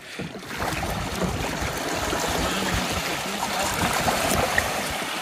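Steady wash and trickle of shallow seawater lapping at the beach edge around kayaks run aground.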